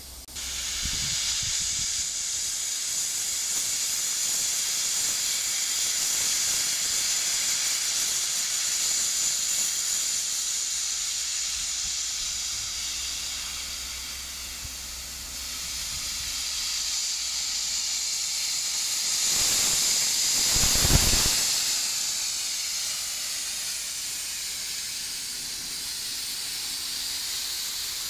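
Steady loud hiss of steam escaping low at the cylinders of steam locomotive 012 066-7, an oil-fired three-cylinder DB class 01.10 express engine. The hiss swells about 20 seconds in, with a deep rumble beneath it.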